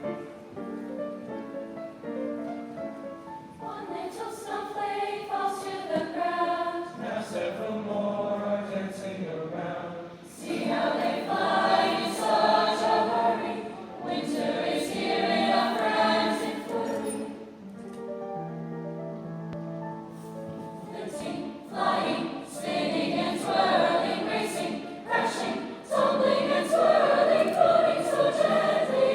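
High school chorus singing, the sung lines marked by crisp s-sounds of the words, with a softer, lower passage about two-thirds of the way through before the full choir swells louder near the end.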